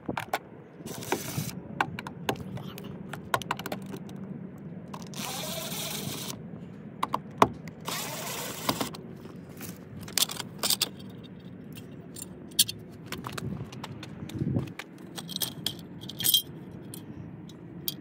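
Cordless drill-driver backing out door sill plate screws in a few short runs of about a second each, with small metal screws clinking and plastic trim clicking in between.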